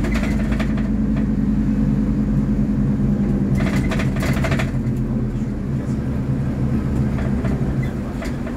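Scania N230UD OmniCity double-decker bus's diesel engine running steadily, heard from inside the passenger deck as a low drone.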